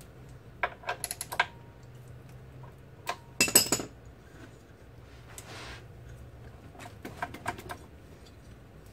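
Loose steel bolts clinking and rattling as they are set down in a parts tray, in three short clusters of sharp metallic clicks, the loudest about three and a half seconds in.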